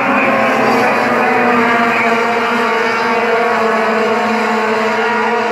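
A pack of short-track sports trucks racing together around a paved oval, their engines running at high revs as a steady blend of many engine notes.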